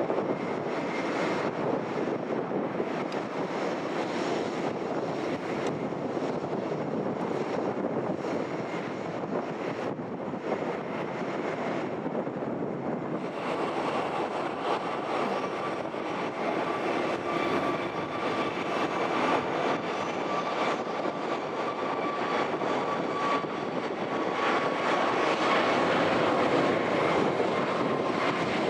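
Jet engines of a Boeing 737-800 (CFM56-7B turbofans) running, then, after a cut about halfway through, the CFM LEAP-1B engines of a Boeing 737-8-200 MAX with a steady high whine over the rush, growing louder near the end.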